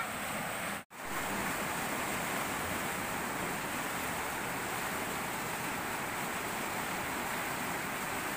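Fast-flowing river water rushing through the dam, a steady noise, with a brief cut to silence about a second in.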